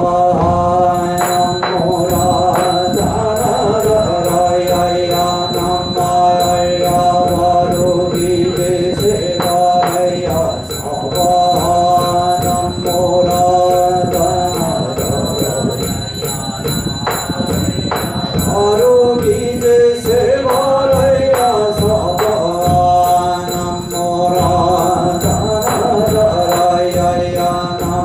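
Korean Buddhist yeombul chanting by a monk and congregation, long held notes sung in unison with short breaks between phrases, over a steady percussion beat.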